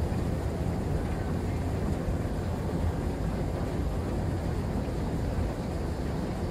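Schindler 9700 escalator running, heard while riding it: a steady low rumble.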